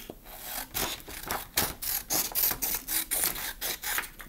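Scissors cutting a strip from a sheet of paper: a steady run of short snips, about three to four a second.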